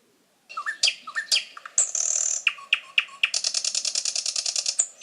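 Nightingale singing: a string of varied short whistled notes and sharp clicks, then a fast, evenly repeated trill through the second half.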